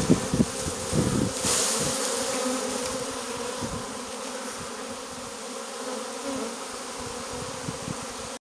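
Honeybee swarm buzzing steadily, with a few low thumps in the first second or so.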